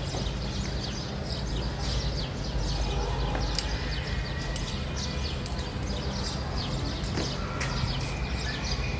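Many small birds chirping: a dense run of short, falling chirps over a steady low background rumble.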